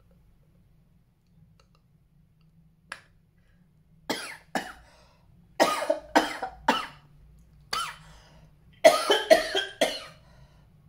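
A man coughing in a fit of short, sharp coughs that starts about four seconds in and comes faster toward the end. The coughing is provoked by the nasal swab of a COVID lateral flow self-test.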